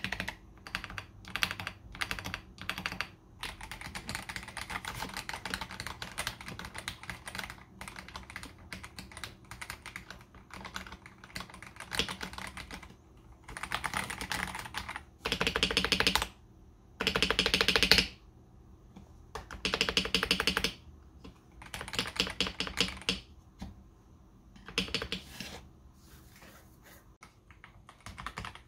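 Typing on a KBD67 Lite R3 mechanical keyboard fitted with stock, unlubed AKKO CS Jelly Pink linear switches: a steady stream of key clacks, with several short, louder flurries of fast keystrokes in the second half.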